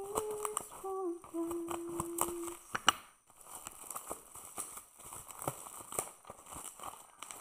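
A woman humming a few held notes with her mouth closed for about the first two and a half seconds, over the crinkle of plastic bubble wrap being pulled off a box. A sharp snap comes about three seconds in, then crinkling and rustling of the bubble wrap as the package is unwrapped and turned over.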